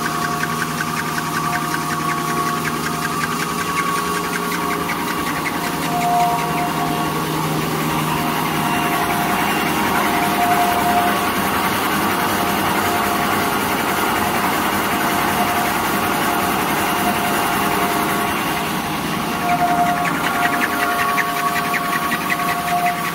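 Automatic facial tissue and hand towel film packing machine running: a steady mechanical hum with constant tones, one of which swells briefly now and then. Fast, fine ticking grows stronger near the end.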